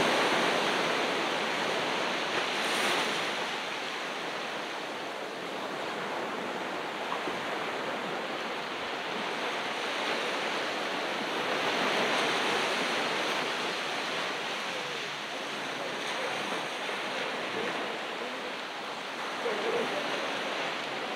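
Ocean surf washing onto a beach: a steady rush of breaking waves that swells and eases every several seconds.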